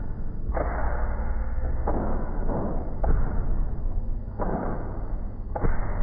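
Unexplained noises on a drone's flight recording. A steady low rumble runs under bursts of rushing noise that cut in and out abruptly every second or so, with a few sharp thuds.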